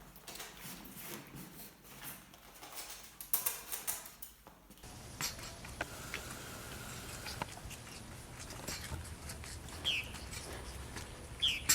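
A small pet sneezing in short, sharp bursts, followed near the end by two brief, high, falling squeaks.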